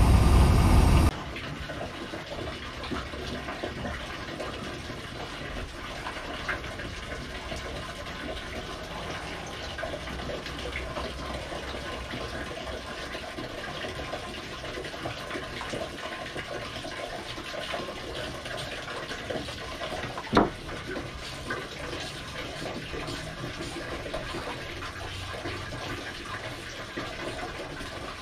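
Inboard boat engine running, then shut off abruptly about a second in. After that, a steady rush of running water, with a single knock about twenty seconds in.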